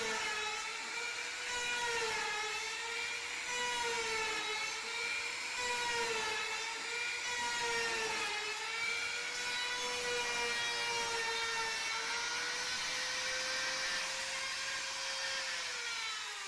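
Handheld trim router running at high speed as it cuts a hinge recess into the edge of a wooden door, its whine dipping in pitch and recovering again and again as the bit bites into the wood. At the very end it is switched off and the whine begins to fall.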